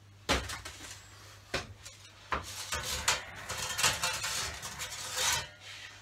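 Metal-bladed baker's peel knocking and scraping on a deck oven and a wire cooling rack as a baked loaf is taken out and set on the rack: a sharp knock near the start, a few more knocks, then a stretch of scraping and rattling.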